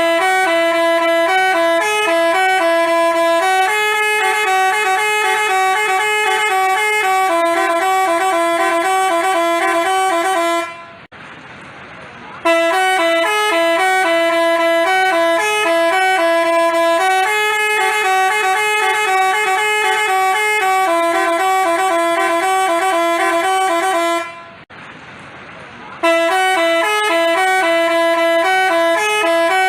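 Telolet basuri bus horn playing a tune of held, stepping notes, loud. The same phrase plays through, breaks off about eleven seconds in, starts again, breaks off again near twenty-four seconds, and starts a third time.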